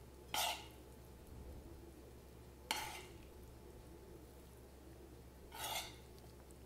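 A spoon scraping and tapping as it serves chicken and vegetable filling out of the cooking pan: three brief scrapes, a few seconds apart, over a faint low hum.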